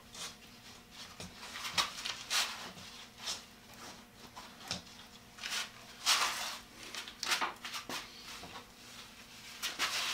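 Scattered knocks, taps and rubbing from hands handling a treadle grinder's sandstone wheel, its wooden frame and fittings, at irregular intervals.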